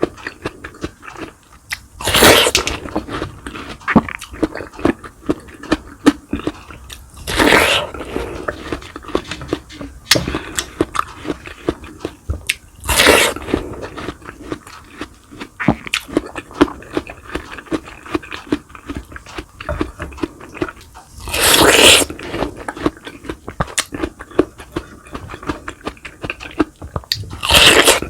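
Close-miked eating of fried boneless milkfish and garlic rice: steady wet chewing and mouth clicks, with five louder crunchy bites spaced several seconds apart.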